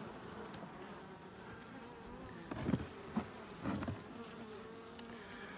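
Honeybees buzzing around an opened hive, the hum wavering in pitch as bees fly close by. Three short low knocks come about two and a half, three and just under four seconds in.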